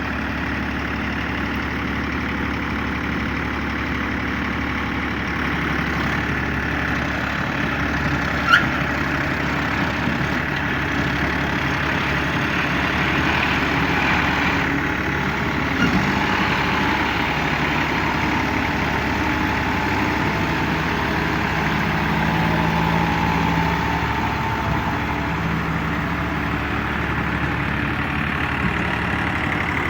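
Diesel tractor engine running steadily. A short sharp sound stands out about eight and a half seconds in.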